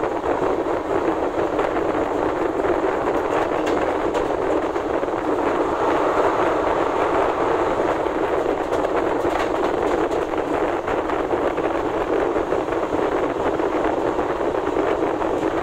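Passenger train coaches running at speed, heard from an open door or window aboard: a steady rush of wheel-on-rail noise.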